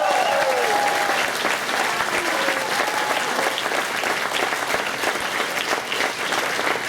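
Audience clapping steadily, a dense patter of many hands; the final held note of the music fades out within the first second.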